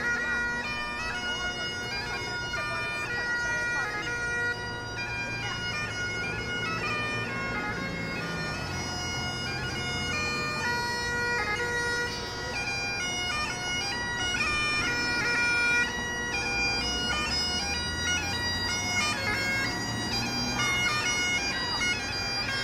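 Bagpipe music: a melody of held notes stepping up and down over a steady drone.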